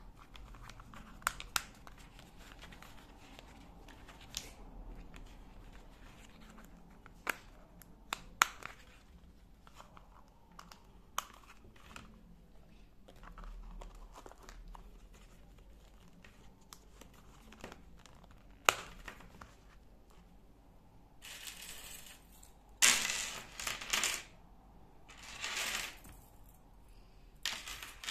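Handling of a leather cigarette case with brass press-stud snaps: sharp clicks of the snaps and of hard parts touching the table, and the soft rustle of leather and a cardboard cigarette pack being worked into the case. Several louder rustling bursts come near the end.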